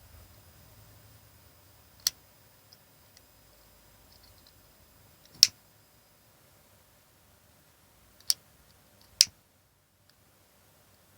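Lighter clicking: four sharp clicks spaced a few seconds apart, the last two less than a second apart, with a few faint small ticks after the first.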